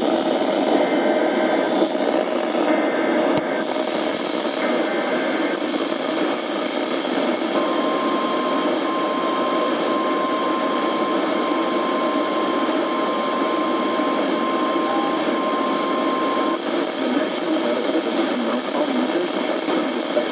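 Weather radio receiver hissing with heavy static. Three short warbling data bursts of an EAS/SAME alert header come first, then the steady single-pitch weather radio alert tone sounds for about nine seconds, with brief dropouts. The alert tone is the signal that a warning broadcast follows.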